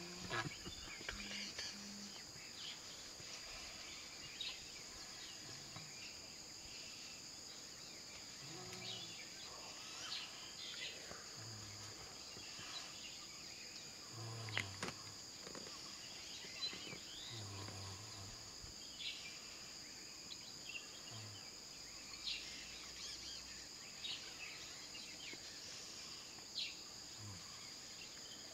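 A steady, high-pitched insect chorus, with scattered faint clicks and taps.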